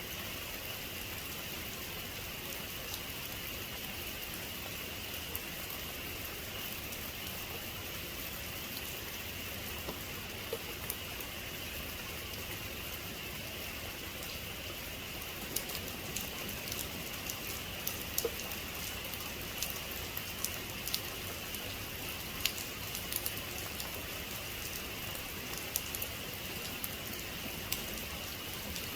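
Heavy rain falling steadily, with scattered sharper drop hits that become more frequent about halfway through.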